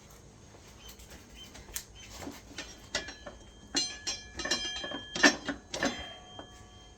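Metal parts clinking and knocking against each other as a motorcycle rear axle is worked into place, a dozen or so sharp knocks in the second half, several ringing briefly like struck steel.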